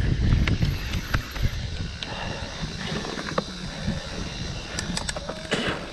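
Mountain bike rolling over rough ground: scattered clicks and rattles from the drivetrain and frame. Wind rumbles on the microphone at the start and eases about a second in.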